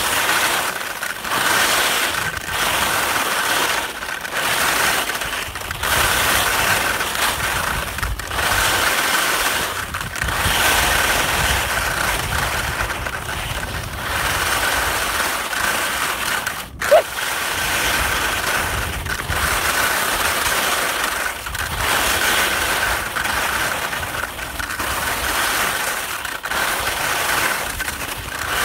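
Skis scraping and chattering over firm, sun-cupped spring snow, swelling and fading with each turn about every two seconds. A single sharp click sounds about seventeen seconds in.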